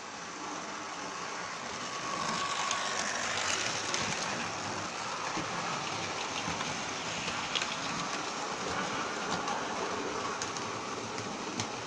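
Model railway train running on the layout's track: a steady running noise that grows louder about two seconds in, with a few faint clicks from the wheels on the rails.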